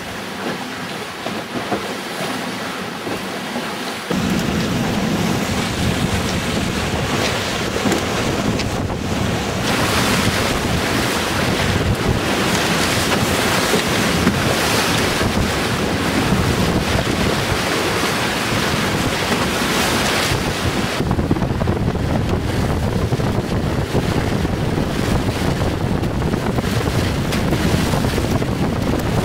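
Wind buffeting the microphone over water rushing and splashing past the hull of a trimaran sailing at speed. The noise steps up and fills out about four seconds in, then stays steady.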